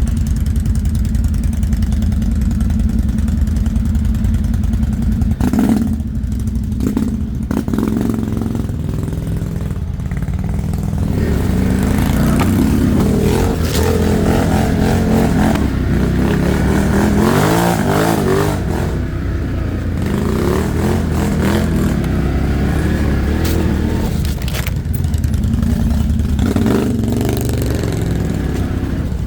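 ATV engine running, steady at first, then revving up and down with rattling and clatter from about ten seconds in.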